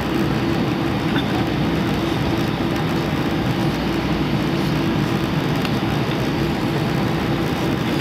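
Steady cabin noise inside an Airbus A319 taxiing: the jet engines at low taxi thrust and the cabin air, a constant even drone with a strong low hum.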